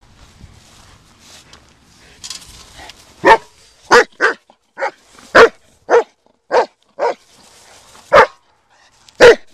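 A black German Shepherd barking: about ten short, sharp barks in quick, uneven succession, starting about three seconds in after some faint rustling.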